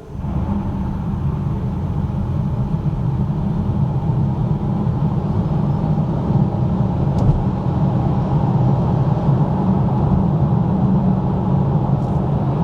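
Polestar 2 single-motor electric car accelerating hard from a standstill on winter tyres: a steady rumble of road and tyre noise that starts abruptly and builds slightly louder as speed rises.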